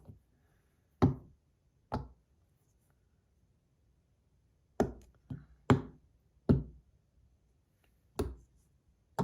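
Metal bar fidget spinners being set down one after another on a hard surface: a series of short, sharp knocks, two early, then after a pause a quick cluster and one more near the end.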